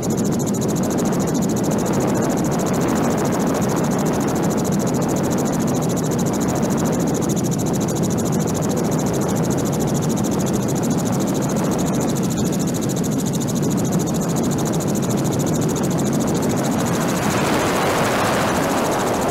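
Helicopter rotor and engine noise, a steady dense rumble heard on board the filming helicopter. Near the end the sound turns brighter.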